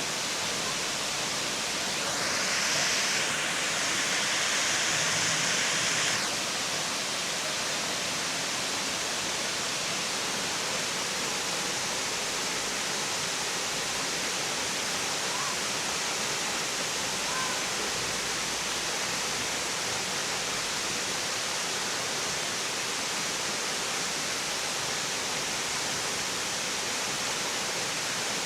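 Waterfall cascading, a steady rushing of water. About two seconds in, a louder, higher hiss comes in suddenly and cuts off about four seconds later.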